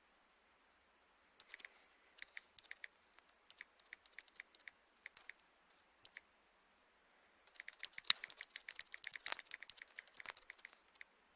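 Keystrokes on a computer keyboard: faint, irregular light clicks in short runs, starting about a second and a half in, with a quicker, denser run of typing from about eight to ten and a half seconds in.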